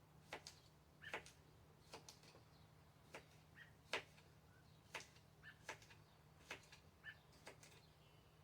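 Kitchen knife slicing through a cucumber onto a cutting board: faint, sharp taps at uneven spacing, about two a second.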